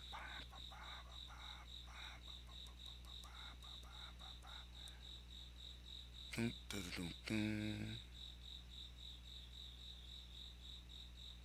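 A cricket chirping steadily in a fast, even high-pitched pulse. About six seconds in, a short louder vocal sound, a hum or murmur, cuts across it.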